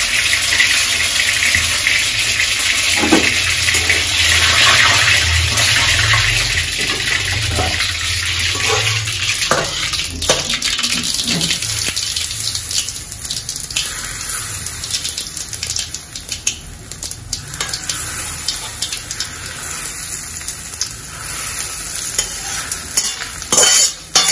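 Hot sesame-oil tempering of mustard seeds sizzling as it is poured from a kadai over chopped raw mango for pickle. A spatula scrapes and knocks against the pan. The sizzle is loud at first and dies away over the second half.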